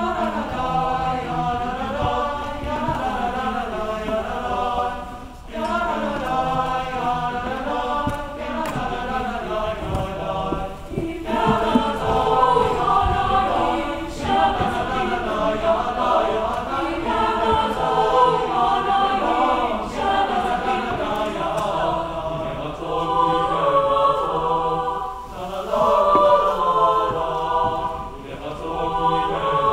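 Mixed high school choir of young women's and men's voices singing in Hebrew, in phrases with short breaks about five and eleven seconds in.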